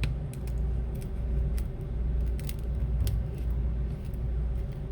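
Steady low hum with scattered light clicks and taps as the phone and small tools are handled on the repair bench.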